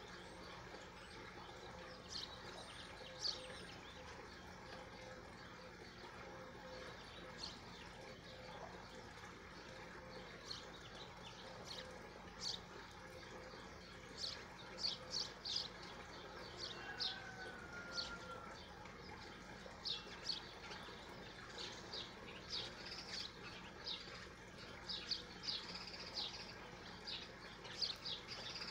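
Small birds chirping: many short, high chirps, sparse at first and coming more often through the second half, over a faint steady background hum.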